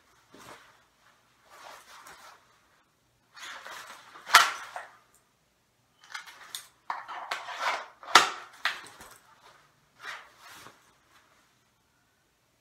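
Nylon jacket rustling as it is swept aside, with sharp clicks of a Glock 17 pistol drawn from and pushed back into a Kydex outside-the-waistband holster. The two loudest clicks come about four and eight seconds in.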